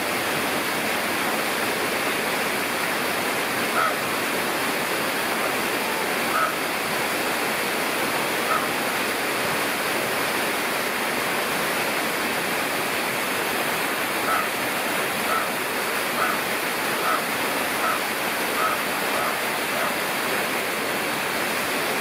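Steady rush of running water. Over it a bird gives short single chirps, a few spaced seconds apart and then a string of them about one a second in the second half.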